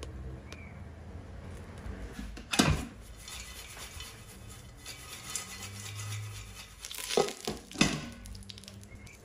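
Stainless steel Instant Pot inner pot, full of popped popcorn, clanking against the cooker as it is lifted out with an oven mitt and set back in: a loud clank about two and a half seconds in and two more near the end. Popcorn shifts and rattles inside the pot between them.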